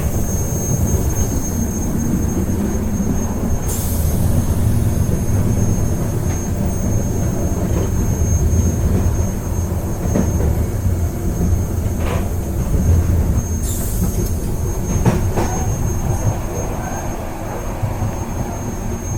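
Train running along the track: a steady low rumble with a faint high whine, and a few short knocks and brief hisses along the way.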